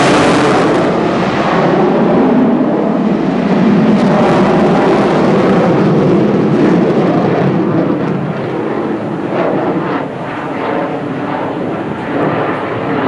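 MiG-29 fighter jet's twin turbofan engines roaring as it flies its display overhead, a loud, steady jet noise that eases a little about eight seconds in.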